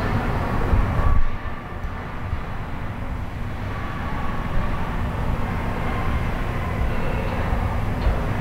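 Ice hockey rink ambience during play: a steady low rumble with a few faint knocks from sticks and puck.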